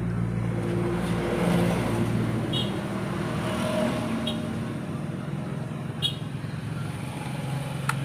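A motor vehicle's engine running nearby, a steady low hum whose pitch shifts a little. A few light clicks, about four in all, come from the power plug and multimeter probes being handled.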